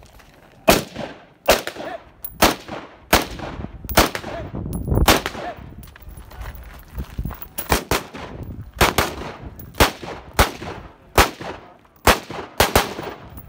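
Semi-automatic rifle shots fired one at a time, then after a pause of about two seconds, pistol shots. About a dozen sharp shots in all, unevenly spaced roughly a second apart, each with a short echo.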